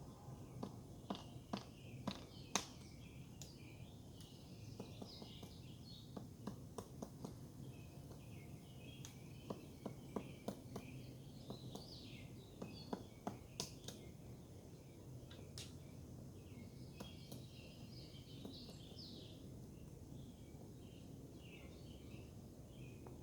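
Woodpecker pecking at wood in single, irregular knocks, a few at a time with pauses between, while small birds chirp and twitter in the background.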